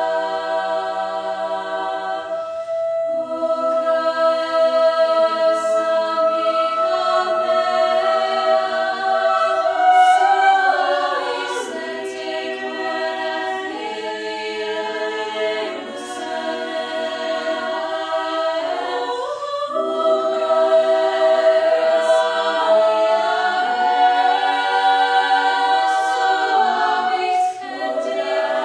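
Choir singing unaccompanied: slow, sustained chords that shift under one high note held throughout, with short breaks for breath about three seconds in, around two-thirds of the way through, and near the end.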